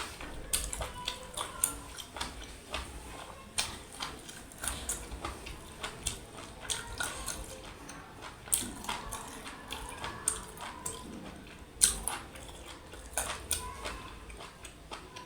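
A person eating mutton curry with rice and dal close to the microphone: wet chewing with irregular mouth clicks and smacks, one sharper click about twelve seconds in.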